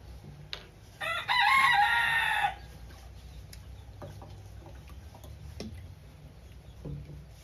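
Rooster crowing once, about a second in, one call lasting about a second and a half.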